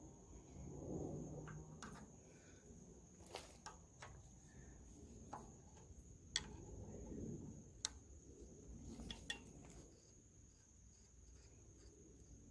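Faint, scattered metallic clicks and taps of a hand wrench working on the governor collar at the flywheel hub of an International Type M 6 hp hit-and-miss engine, with soft handling rustle between them. A steady faint high-pitched tone runs underneath.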